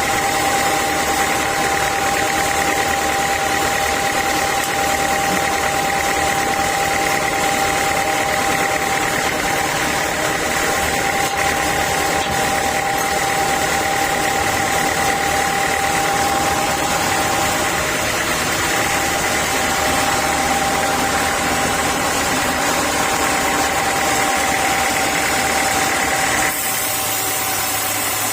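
Sawmill saw machinery running with a steady whine over a constant noisy drone. Near the end the sound changes abruptly to a lower, steadier hum.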